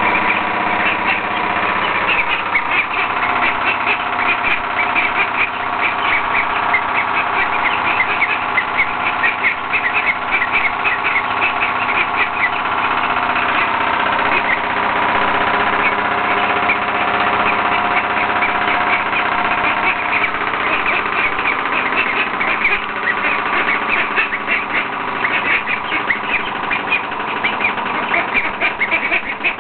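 Ducks chattering with a rapid run of short quacks, which thin out for a stretch in the middle and pick up again, over a steady mechanical hum.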